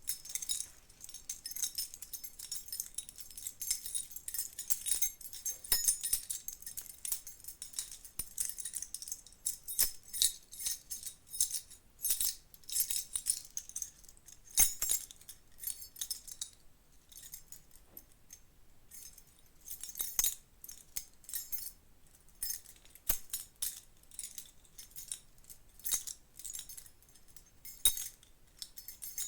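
A bunch of metal keys jangling and clinking against each other in irregular, bright bursts, with a few quieter stretches between shakes.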